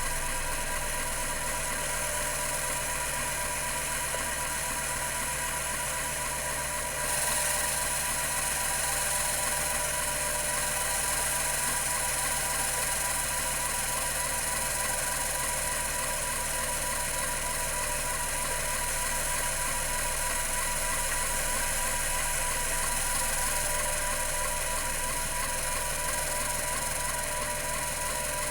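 Computer Memories CM-5412 5.25-inch full-height hard drive running at 3600 RPM: a steady spindle whine with a fast, even mechanical chatter from its rotary band-stepper head actuator seeking. A brighter hiss comes in about seven seconds in.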